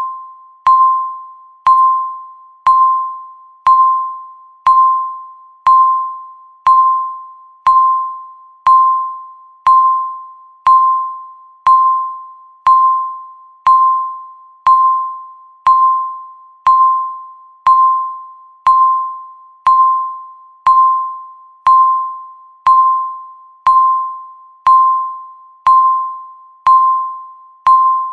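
Countdown timer beeping once a second: a single electronic beep at the same pitch each time, sharp at the start and fading away before the next one.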